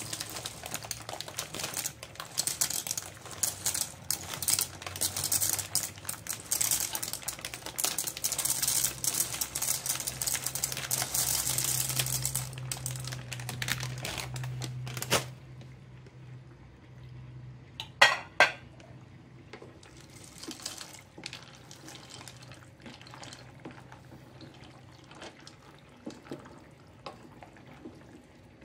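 Dry elbow macaroni poured from a plastic bag into a steel pot of simmering broth, a dense rattling crackle that lasts about fifteen seconds. A couple of seconds later come two sharp knocks, then quieter scraping as the pasta is stirred in with a wooden spoon.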